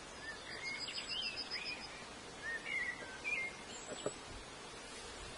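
Small songbirds chirping several times, with a quick ticking trill in the first couple of seconds, over steady outdoor background noise; a brief knock about four seconds in.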